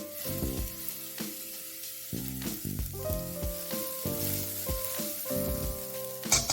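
Food sizzling as it fries in a pan, a steady hiss with a brief louder crackle near the end, under background music.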